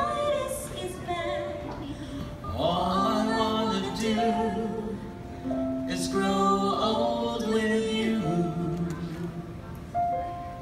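A small vocal group singing together in harmony, holding long notes, with a fuller, louder entry about two and a half seconds in.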